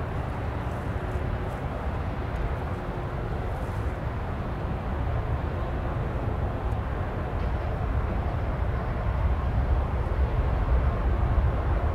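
Distant jet rumble of an Airbus A380's four engines, steady and slowly growing louder.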